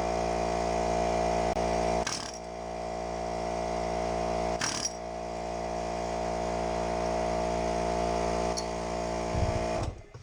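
A power tool running in one long steady burst, with two short knocks about two and four and a half seconds in, as it works to break a seized ball joint free of a control arm.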